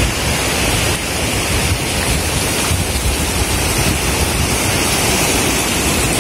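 Rough sea surf washing in, a steady rushing noise, with wind buffeting the microphone.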